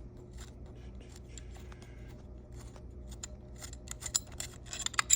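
Small sharp metal clicks and scrapes from a billet quick-release hood hinge being worked loose by hand, coming thicker and louder toward the end.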